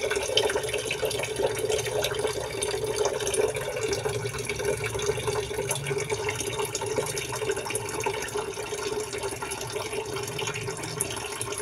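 Tap water running in a steady stream into a metal pot of uncooked rice, filling it as the rice is washed.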